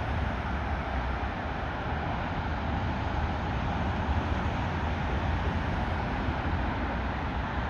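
Boeing 737-800's twin CFM56-7B jet engines at climb power as the airliner pulls away after takeoff: a steady, deep rumble with an even rushing noise over it.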